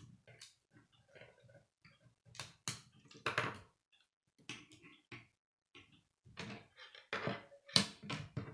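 Plastic K'nex rods and connectors clicking and rattling against one another as pieces are snapped together and handled, in uneven clusters of small clicks and knocks. The loudest click comes near the end.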